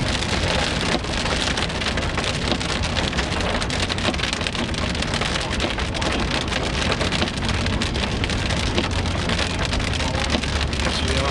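Rain hitting the roof and windshield of a moving vehicle, heard from inside the cabin: a loud, dense, steady patter over the low drone of the vehicle on the road.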